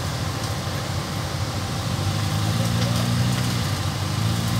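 Suzuki rock crawler's engine running at low revs, working harder from about halfway through as the vehicle crawls up and over a boulder.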